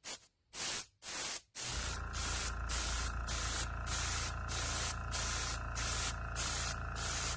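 Airbrush spraying Alclad II chrome lacquer in short hissing bursts, about two a second, as the trigger is worked on and off. About two seconds in, a steady motor hum starts up beneath the spraying.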